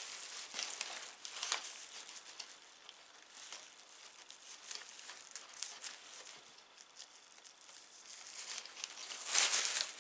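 Plastic sleeve and crumpled packing paper rustling and crinkling as they are handled and pulled apart, in short irregular bursts, loudest near the end.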